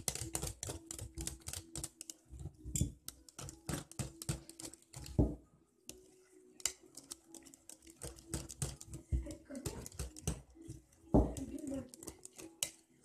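Wire whisk beating a chocolate mascarpone cream in a glass bowl: quick, continuous clicking of the wires against the glass, with a short pause about six seconds in.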